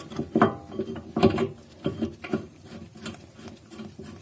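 Irregular clicks and knocks of steel bolts and hand tools being handled and fitted. The two loudest come within the first second and a half, followed by fainter taps.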